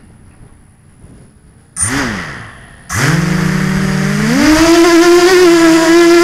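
Electric motors of an FPV drone: a brief spin-up that winds straight back down, then the motors start and whine steadily before being throttled up to a higher, steady pitch.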